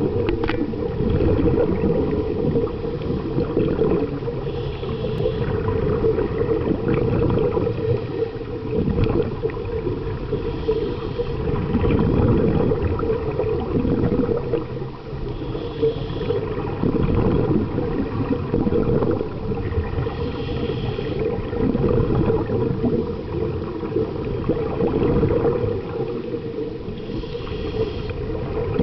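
Underwater sound through a diving camera: a steady low rumble of water, broken about every five or six seconds by a diver's breath through a scuba regulator.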